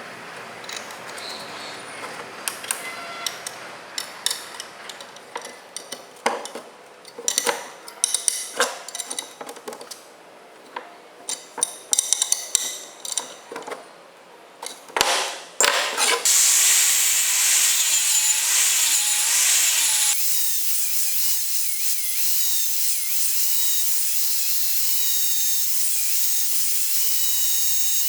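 Metal pieces and hand tools clinking and knocking on a workbench. Then, about halfway through, a power tool starts cutting the metal C-channel with a loud, steady, high-pitched noise whose pitch wavers under load.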